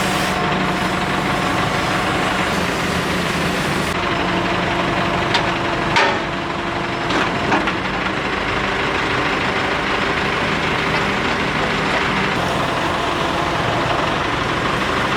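Heavy diesel engine running steadily, with a few sharp metallic knocks a little after the middle.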